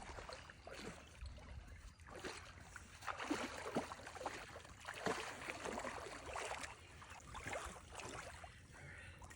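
Water splashing and sloshing in irregular bursts as a hooked lake sturgeon is brought in at the surface.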